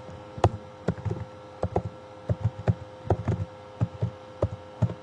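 Computer keyboard being typed on: irregular key clicks with dull low thumps, a few keystrokes a second, over a faint steady hum.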